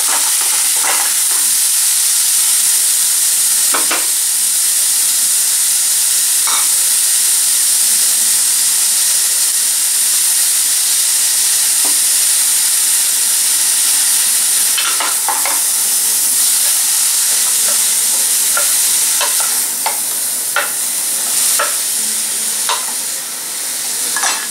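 Grated bottle gourd sizzling as it fries in butter in a metal pot, with a steady high hiss. A wooden spoon now and then scrapes and knocks against the pot, more often near the end.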